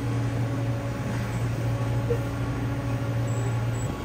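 Steady low hum of shop refrigeration equipment, cutting off abruptly just before the end.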